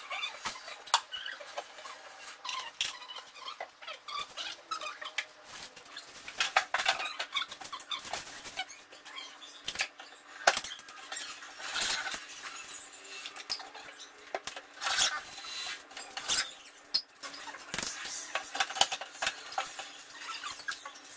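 Irregular clicks, knocks and small squeaks of kitchen cabinet doors and panels being handled and fitted, with no power tool running.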